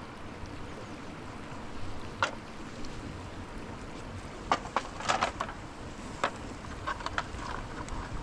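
Metal plates and pans clinking now and then as they are washed in a metal tray, with a cluster of clinks about halfway through, over a steady rushing background.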